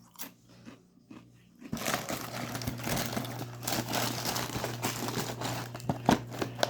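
Plastic snack bag crinkling as it is handled, starting about two seconds in and running on continuously, with a few sharp clicks near the end.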